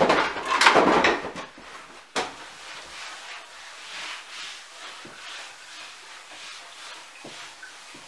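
A stiff tablecloth rustling and crackling as it is pulled and spread over a round wooden table. A single knock comes about two seconds in. Then a cloth rubs back and forth across the tablecloth in quick, soft, repeated strokes.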